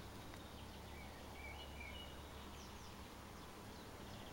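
Faint steady outdoor background noise, with a few short, high bird chirps about a second and a half in.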